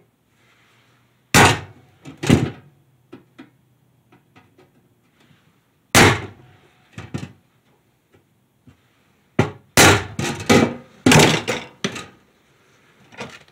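Claw hammer striking a center punch against the steel wall of an ammo can, punching marks for drill holes. Two sharp blows come a second apart early on, another near the middle, then a quicker run of about eight blows near the end.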